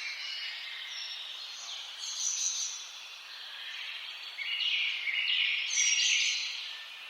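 Woodland songbirds singing, several songs overlapping over a soft steady hiss of outdoor air. There is a louder burst of song about two seconds in, and a longer, louder phrase from about four and a half to six seconds in.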